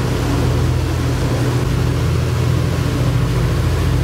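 Tour boat's engine running steadily under way, a low drone, with a rush of wind and water from the boat's motion.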